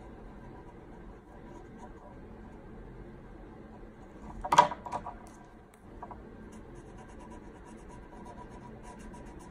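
Felt-tip pen scratching on paper in short strokes while colouring in hand-drawn letters. About four and a half seconds in there is one brief, much louder sound.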